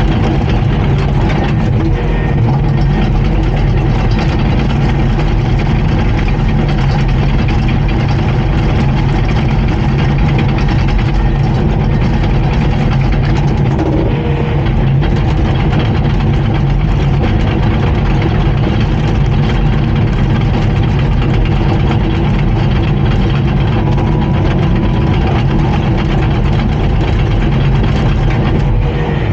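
Diesel engine of a Komatsu D39PX crawler bulldozer running loud and steady, holding one pitch throughout.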